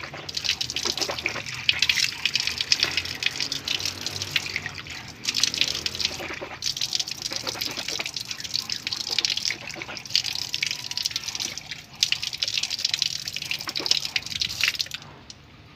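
Water splashing and dripping as a man washes his face, in several spells with short breaks, stopping shortly before the end.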